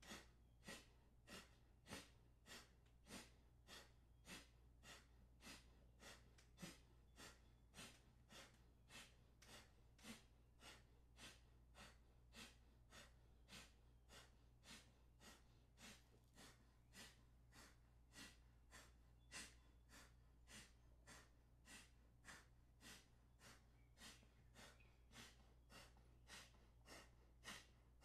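Faint, rhythmic forceful exhalations through one nostril at a time, about two sharp puffs a second: alternate-nostril kapalabhati (clear-the-mind) breathing, with a steady low hum underneath.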